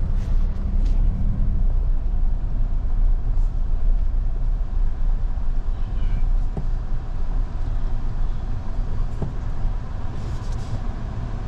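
Steady low rumble of a Toyota Tundra pickup driving along a dirt trail, heard inside the cab: engine and tyre noise, with a couple of faint clicks about two-thirds of the way through.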